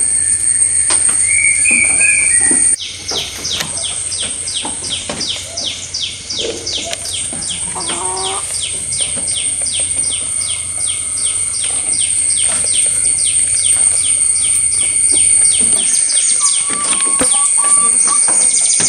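Rhythmic high-pitched chirping, about three chirps a second, starting about three seconds in, over a constant high whine.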